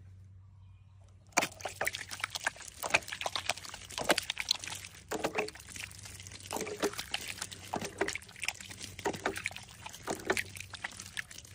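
Water splashing and pouring in quick, irregular splashes, starting about a second and a half in.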